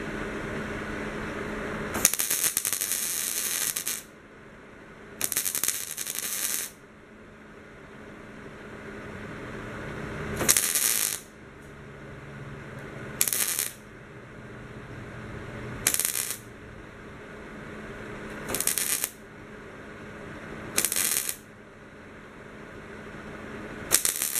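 MIG welder arc crackling in about eight short bursts, from two seconds down to half a second each, as tack and stitch welds are laid on thin sheet steel. A steady hum runs for the first two seconds before the first burst.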